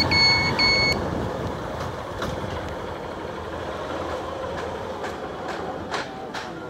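Motorcycle engine running at low speed as the bike rolls up and stops. A loud, evenly repeated electronic beep, about two a second, runs over it and stops about a second in. A few sharp clicks come near the end.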